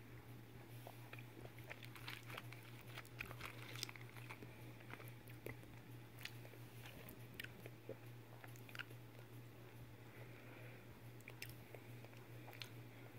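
Faint close-up crackles and clicks as a chocolate egg in its foil wrapper is broken open and the plastic toy capsule inside is handled, over a steady low hum.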